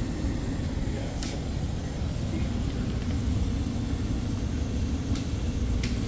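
Goodman air handler's blower running steadily, heard up close as a low, even rushing hum, with two faint clicks, one about a second in and one near the end.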